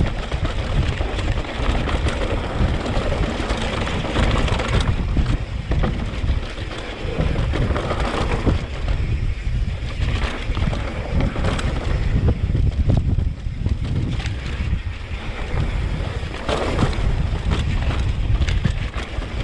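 Wind buffeting the microphone and tyres rumbling over a dry dirt trail on a mountain-bike descent, with scattered short rattles and clicks from the bike.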